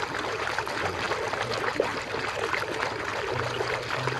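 Water running and splashing as a muddy toy tanker truck is washed clean, with small knocks and splashes of the toy under the flow.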